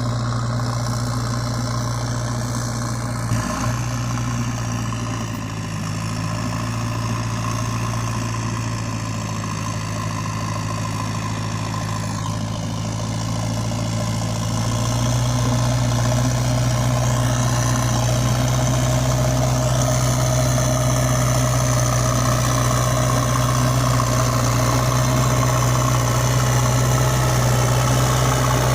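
Heavy diesel machinery engine running steadily, with a short knock about three seconds in; the engine grows louder about halfway through and stays so.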